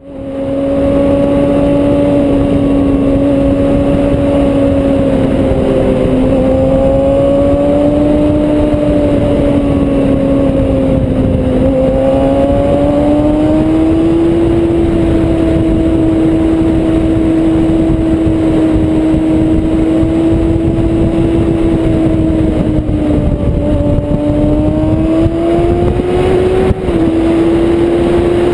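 Kawasaki Ninja sportbike engine running at steady high revs while riding, over a haze of wind noise. The pitch rises and falls gently, with a brief dip near the end.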